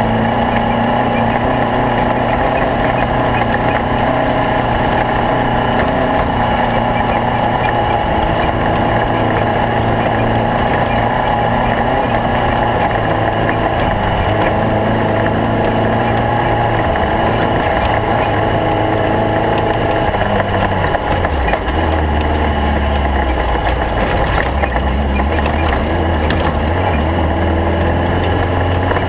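Stock-class Volkswagen Beetle race car's engine running steadily under load, its note dropping lower about two-thirds of the way through.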